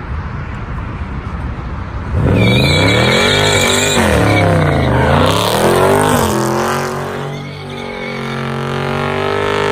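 Dodge Charger 392 Daytona's V8 running at low revs, then revved hard about two seconds in as the car spins its rear tyres in a burnout. The revs swing up and down with tyre noise over them, dip briefly near the end, then climb again.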